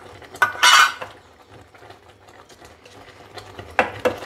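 A metal spoon clatters loudly against a container for about half a second, then knocks twice against the cooking pan near the end, as a spoonful of ghee is scooped and added to the thickening banana-and-jaggery mixture.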